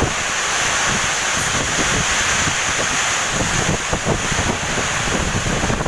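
Strong gusty wind of a summer thunderstorm: a steady rushing noise with rumbling gusts buffeting the microphone.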